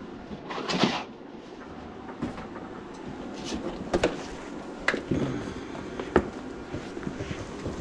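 Handling noise as gloved hands move cloth and gear: rustling, a louder rustle just under a second in, and a few sharp clicks and knocks later on. No drain machine is running.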